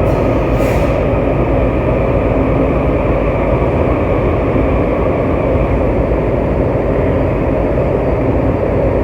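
Steady rumble and hiss inside a Washington Metro railcar.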